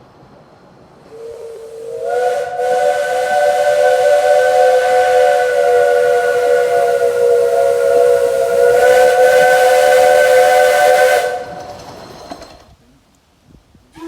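Steam locomotive whistle giving one long blast of about ten seconds: several notes sounding together as a chord over a hiss of steam. It opens with a short, slightly rising note and ends in fading hiss.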